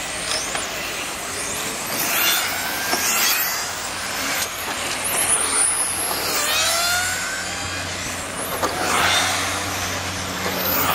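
Radio-controlled racing cars lapping an asphalt track. Their motors whine in repeated rising and falling sweeps as they accelerate, brake and pass by.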